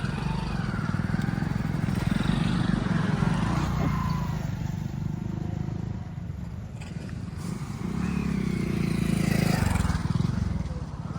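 A motor vehicle's engine running close by, rumbling throughout and swelling twice, most strongly about eight to ten seconds in.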